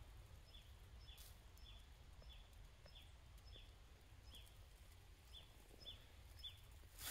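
A bird faintly calling: a short high note that falls in pitch, repeated about every half second with one pause past the middle, over a low steady rumble.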